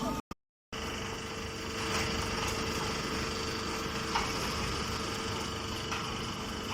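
Small automatic square baler running steadily, a constant mechanical hum with a few faint clicks; the sound drops out completely for about half a second just after the start.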